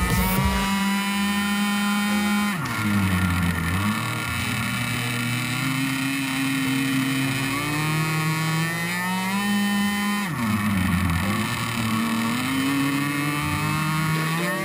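The 27cc two-stroke petrol engine of an Apache 52 RC boat running at high revs, with the throttle eased off twice, about 3 seconds in and again about 10 seconds in; each time the revs drop and climb back up.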